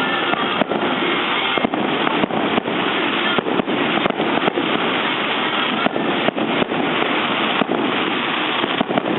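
Fireworks display going off: a dense, continuous barrage of crackling with many sharp bangs at irregular intervals.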